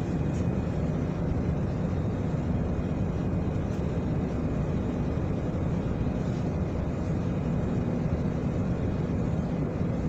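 Steady low rumble and hum of running industrial machinery, with a faint high steady whine over it.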